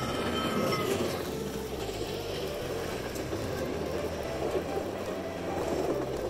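Model Southern Pacific 4449 Daylight steam locomotive and its passenger cars running past close by: a steady rumble of wheels on the track and the electric drive.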